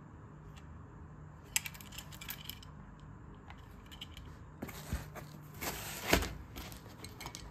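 Handling noise from a toy pistol: a few light clicks and clacks, then rustling and a knock just after six seconds in as the pistol is pressed into the fabric-covered foam slot of its case.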